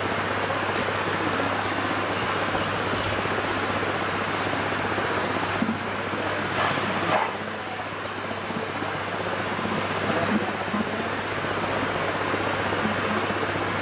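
Steady rushing of a shallow river running over rocks, with a couple of brief louder moments near the middle.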